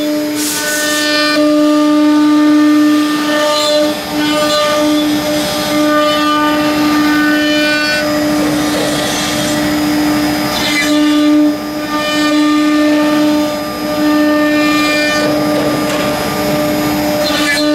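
Two spindles of a two-head CNC router running with a steady high whine while their bits cut into a board. The cutting noise rises and falls every few seconds as the tools travel.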